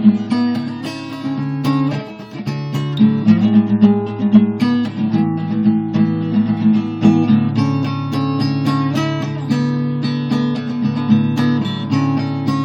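Acoustic guitar strumming chords, with the chord changing every few seconds and no singing.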